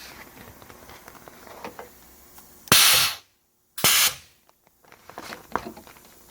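Pneumatic eyelet press (Micron PL-10) cycling once: two short, loud hisses of air about a second apart as the ram drives down and releases, setting a number 3 self-piercing grommet and washer through two layers of banner material. A few light clicks of handling come before it.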